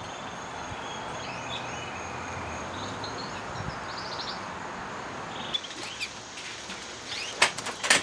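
Caged songbirds giving scattered short chirps and a brief trill over a steady background hiss with a thin, constant high tone. A few sharp clicks come near the end.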